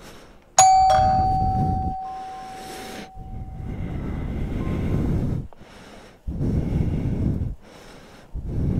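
A video doorbell pressed, its chime sounding about half a second in as one clear tone that fades away over about three seconds. Then come several bursts of rustling and handling noise as the delivery order is set down.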